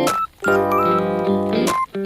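Background music of sustained chords with a melody line over them, dropping out briefly twice.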